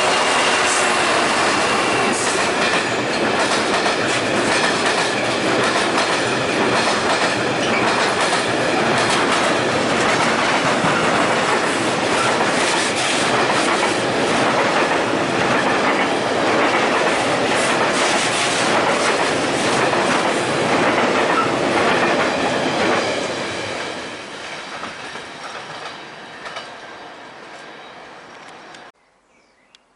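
A train passing close by, its wheels giving a steady run of clicks over the rail joints. It fades over the last several seconds, then cuts off abruptly near the end.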